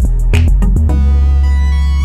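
Background electronic music: a steady beat that stops about a second in, leaving a held synth bass note with sustained higher tones.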